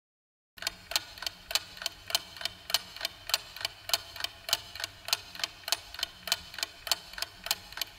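Steady, rapid mechanical ticking, about four evenly spaced ticks a second, starting about half a second in.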